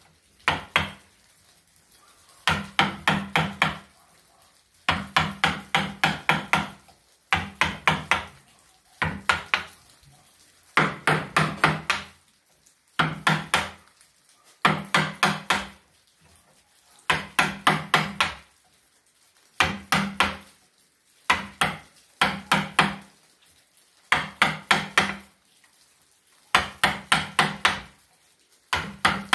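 Mallet driving a carving chisel into a slab of jackfruit wood: groups of four to six quick sharp blows, about five a second, repeating every second or two with short pauses between.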